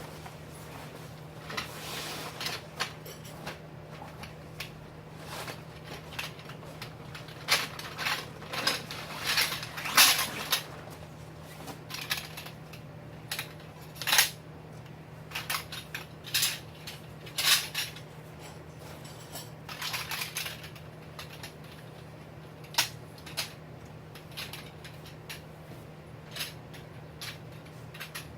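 Irregular sharp metallic clinks and clacks of tent hardware being handled while a tent is pitched.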